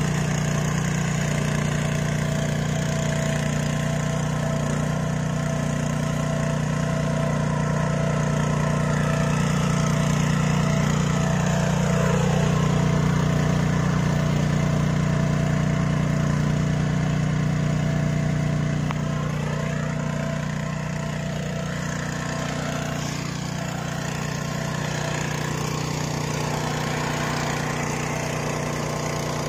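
The RI 740 power weeder's 9 HP single-cylinder, four-stroke, air-cooled petrol engine runs steadily under load while its rotary tines work the soil.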